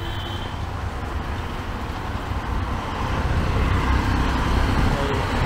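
Street traffic: engines and tyres running steadily, with a vehicle growing louder about three seconds in as it comes close.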